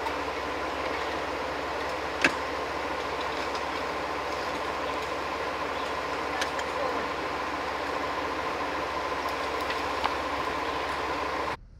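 Jeep driving on an off-road dirt trail: steady engine and drivetrain running noise with a few sharp knocks. The noise cuts off suddenly near the end.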